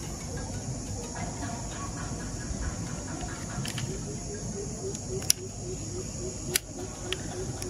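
Steady high chirring of crickets, with two sharp clicks about five and six and a half seconds in as the door of a die-cast toy car is swung open.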